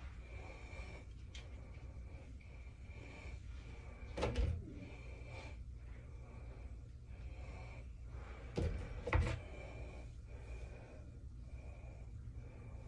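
Low steady room hum with a few soft knocks: one about four seconds in and two close together near nine seconds.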